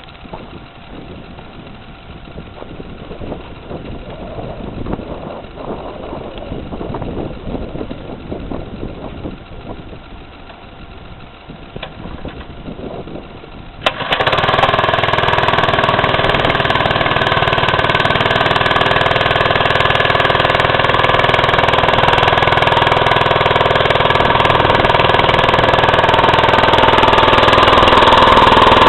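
A 3 hp 72 cc Predator small engine on a motorized bike starts about halfway through, after some quieter irregular noises. It then runs steadily, getting a little louder near the end.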